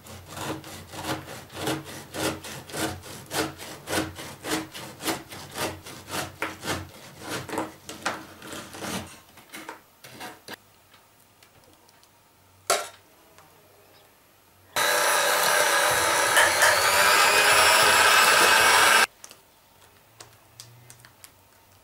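A long knife sawing back and forth through a stack of crisp baked honey-cake layers on a wooden board, about two to three strokes a second, for roughly nine seconds. Later comes a single knock, then a loud steady rushing noise lasting about four seconds that cuts off suddenly.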